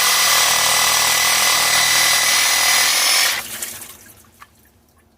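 Handheld power tool running steadily at full speed on a rusted pipe coupler that hand tools would not loosen, with a high whine, stopping about three and a half seconds in.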